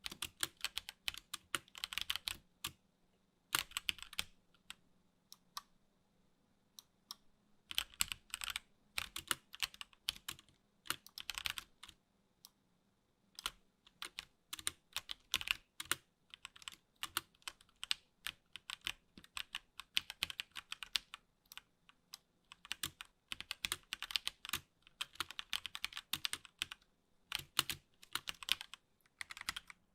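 Typing on a HyperX Alloy Origins Core TKL mechanical keyboard with HyperX Aqua tactile switches: quick runs of key clacks in bursts, broken by a few pauses of a second or more.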